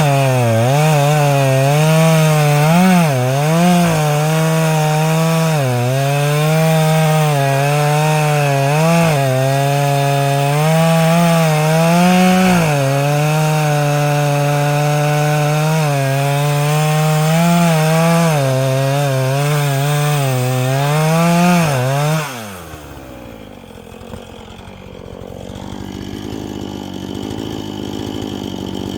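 Two-stroke chainsaw running at high revs and cutting through wood, its pitch dipping and recovering as the chain bites under load. About 22 seconds in the revs fall away and the saw runs much quieter.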